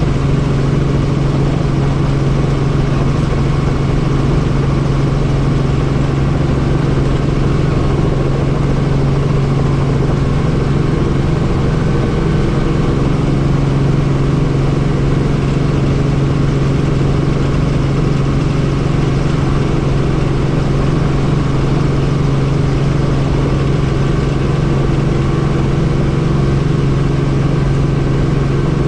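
Helicopter heard from on board, its rotor and engine running at a steady, unchanging drone.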